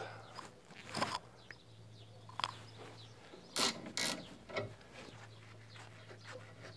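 Ratcheting spanner working the nut of an anti-roll bar drop link: scattered ratchet clicks and a few sharper metallic clanks, the loudest pair about three and a half to four seconds in, over a low steady hum.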